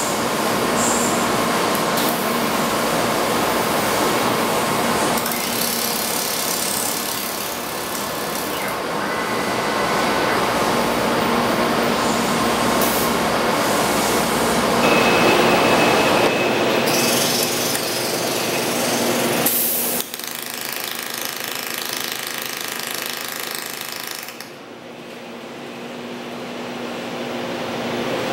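Machine noise from a laser rotary welding workstation: a steady hiss with a low hum, mixed with mechanical clicking and clattering. The sound changes abruptly about twenty seconds in.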